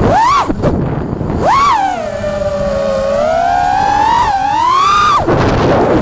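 FPV quadcopter's brushless motors whining as the throttle is worked, the pitch jumping up quickly twice, sagging lower and climbing again, then falling away sharply near the end.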